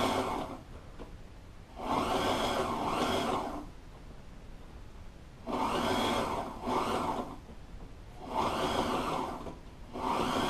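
Sewing machine stitching a double seam through upholstery material in short runs of one to two seconds. It stops and starts about five times.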